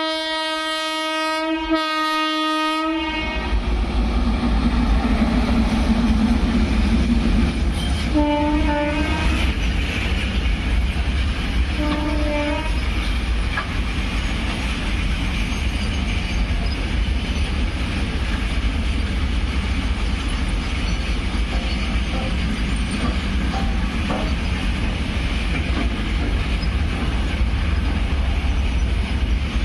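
Horn of a WAG9HC electric locomotive sounding two long steady blasts. The train then passes with a steady rumble and wheels clattering over rail joints, with two shorter, fainter horn toots about 8 and 12 seconds in.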